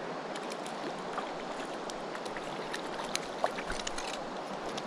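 Steady rush of river current, with scattered sharp little splashes and clicks at irregular times while a small hooked brook trout is being brought in on a fly line.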